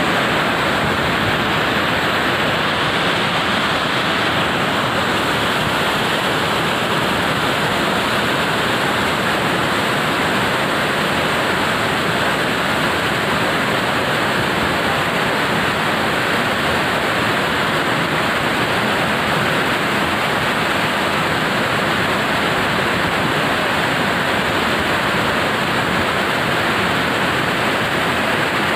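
Torrent of muddy floodwater rushing and cascading over steps, a loud, steady rush of water.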